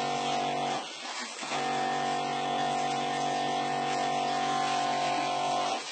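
Steady electric hum of an injector pump forcing liquid through a needle into a raw chicken to plump the meat. The hum drops out briefly about a second in, then resumes at the same pitch.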